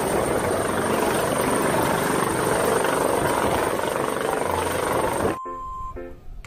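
Helicopter hovering just above a helipad: loud, steady rotor and turbine noise with a thin high whine. It cuts off suddenly about five seconds in, followed by a short held electronic tone and a few short notes.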